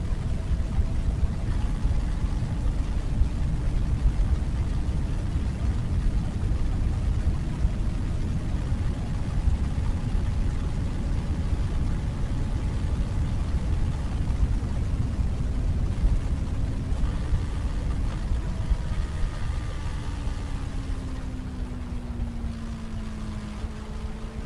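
Wind buffeting the microphone on a moving Benelli BN600i motorcycle, louder than the exhaust. The inline-four engine's note is heard faintly underneath, dropping in pitch about four-fifths of the way through and then rising again.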